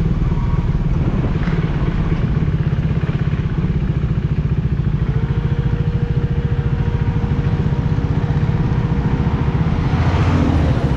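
Motorcycle engine running steadily while the bike moves slowly at about 25 km/h, with road noise.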